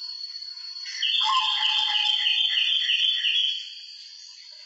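White zebra dove (perkutut) cooing: about a second in, a low opening note and then a quick run of about eight repeated notes, some three a second, lasting two and a half seconds.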